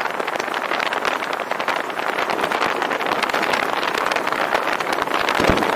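Car driving with steady rushing road and wind noise, wind buffeting a 360 camera's microphone, and a low thump about five seconds in.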